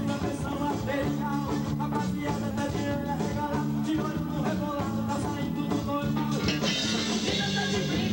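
Brazilian dance-band music with a steady bass line and a driving percussion beat.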